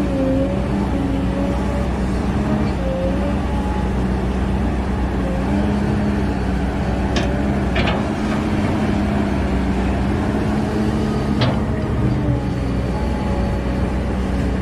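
Kobelco excavator's diesel engine running steadily, its pitch wavering slightly. Three sharp clanks come about seven, eight and eleven and a half seconds in.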